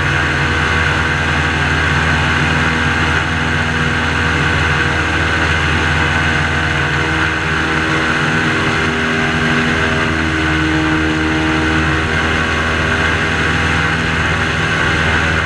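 Airboat's engine and air propeller running steadily as the boat travels across the marsh: a loud, even drone.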